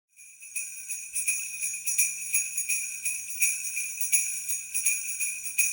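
Jingle bells shaken in a steady rhythm, several jingles a second.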